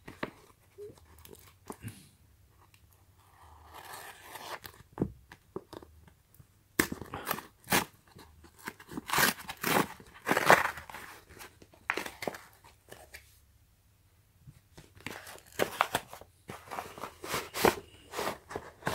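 Paper Priority Mail flat-rate envelope being torn open by hand: repeated rips and crinkling in irregular bursts, with a short quiet pause about two-thirds of the way through.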